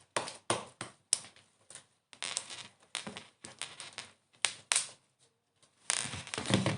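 Slime being handled and pressed into a plastic Play-Doh lamb toy: a string of irregular short clicks and squelchy pops.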